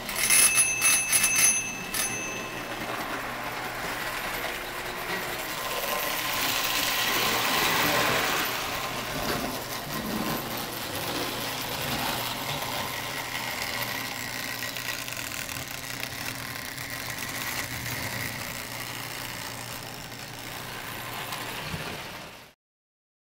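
A small bell rings rapidly for about two seconds, then a Marx O-scale toy train runs steadily on tinplate track: a constant electric-motor hum with wheel and rail clatter. The sound cuts off suddenly near the end.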